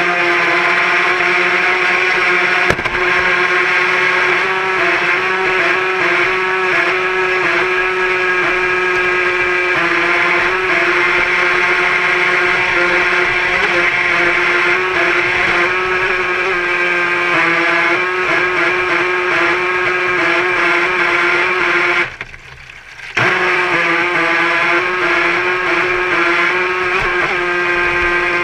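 Radio-controlled model boat's motor running at a steady high-pitched whine under way, with a sudden dropout lasting about a second a little past the two-thirds mark.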